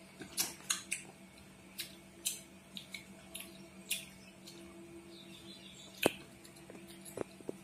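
A child eating sugar-coated candies: a run of irregular sharp crunching clicks, with one louder click about six seconds in, over a steady low hum.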